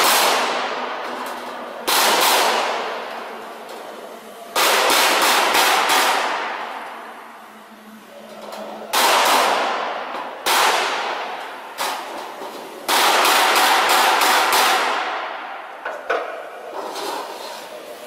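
Sheet-metal bending and locking machine for solar water heater outer tanks pressing plate seams together: a series of loud sharp bangs, some single and some in quick runs of four or five, each fading away over a second or so.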